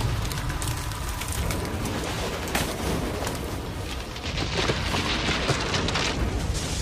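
Dense rain-like pattering over a low rumble. The pattering grows stronger a little after the middle.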